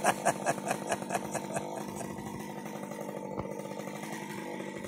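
Chainsaw idling steadily, with a rapid uneven pulsing over the first second or so that settles out.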